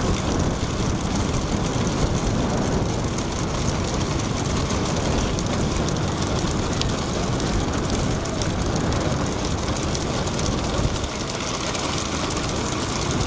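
Steady rush of motorbike engines and road noise at speed, with wind buffeting the microphone, as riders keep pace with racing bullock carts.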